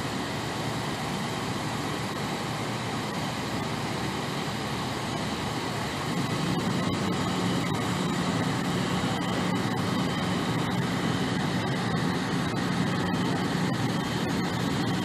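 Steady low mechanical hum with a constant drone that grows a little louder about six seconds in.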